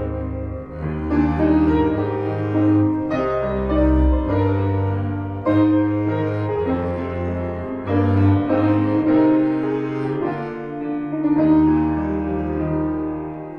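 Grand piano and bowed double bass playing a duet: long bowed bass notes under piano chords and melody.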